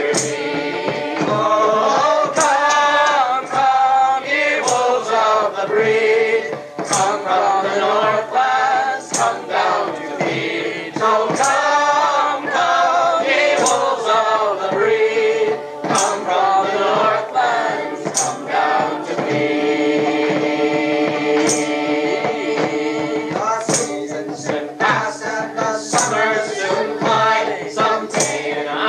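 A choir singing a song in harmony, with a sharp percussive beat about every two seconds. About two-thirds of the way through, the voices hold a long chord for several seconds.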